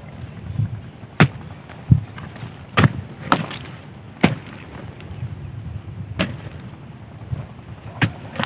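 A metal digging bar striking into soil, about seven sharp blows at uneven intervals a second or two apart.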